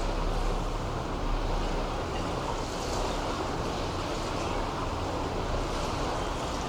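Steady wash of sea waves along the shore, with faint small splashes and a low rumble underneath.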